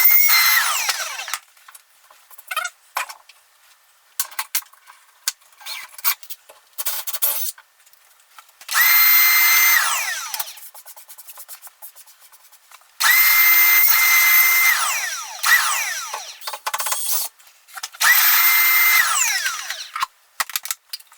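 Milwaukee-style cordless handheld vacuum switched on in about four short bursts to suck up metal drilling chips. Each burst is a steady high-pitched whine that winds down in falling pitch when released, with clicks and scraping of the nozzle between bursts.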